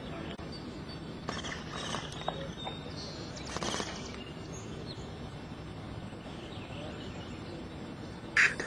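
Steady outdoor background noise in woodland, with a few short bird calls and a louder, brief call near the end.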